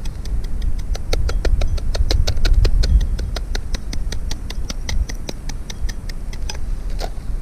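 Rapid, even clicking, about six clicks a second, fading out near the end, over a low rumble of wind on the microphone.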